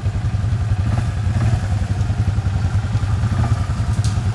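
Utility ATV engine running at low, steady revs as the quad crawls up a muddy rut, with a brief click near the end.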